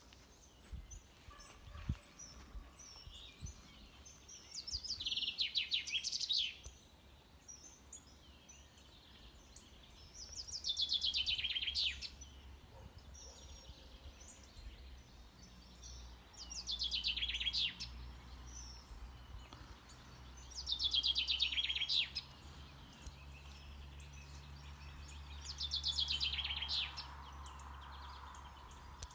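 A songbird repeating the same short song five times, about every four to five seconds: a fast trill that falls from high to lower pitch, each under two seconds long. Fainter short chirps of other birds sound in between.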